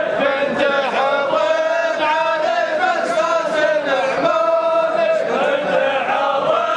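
Men's voices chanting a sung poem in unison, drawing out long, wavering held notes.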